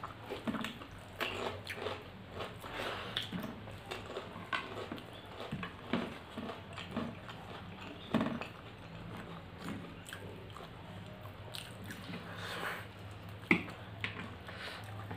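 Close-up eating by hand: wet chewing and lip smacking, with squelches of fingers mixing rice and curry on the plates. Two sharper taps stand out, one about eight seconds in and a louder one near the end.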